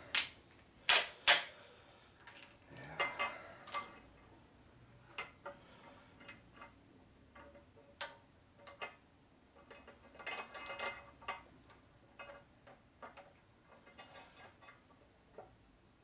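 Small metal parts and tools clinking and tapping as they are handled and set down, in scattered irregular clicks: two sharp ones about a second in and a busier run of clinks about two-thirds of the way through, some with a short metallic ring.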